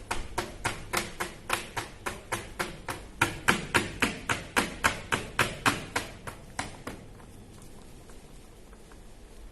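A rapid, even run of sharp clicks or taps, about four a second, that stops about seven seconds in, leaving a faint hiss.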